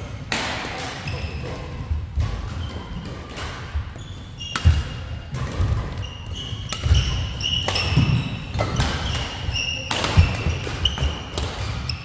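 Badminton doubles rally on a wooden indoor court: sharp racket-on-shuttlecock hits every second or two, with sneakers squeaking on the floor and footfalls thudding.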